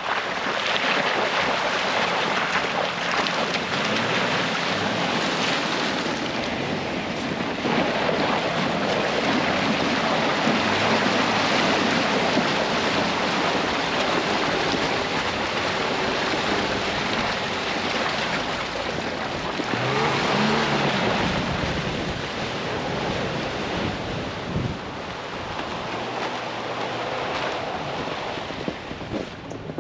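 Jeep Wrangler driving on a snow-covered trail: steady rushing noise of tyres through snow and slush, with the engine's low hum beneath, its note rising briefly about twenty seconds in.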